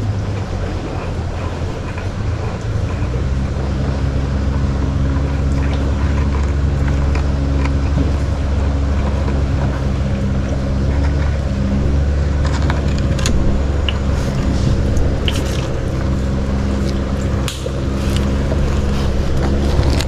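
Small boat engine running steadily at low revs, a constant low hum. In the second half there are scattered small clicks and splashes from the water.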